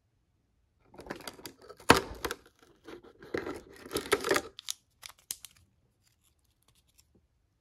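Cardboard door of a toy box being torn open by hand: a run of ripping and scraping from about a second in to past four seconds, with one sharp tear near two seconds. A few light crinkles and clicks follow as a small wrapped toy is pulled out.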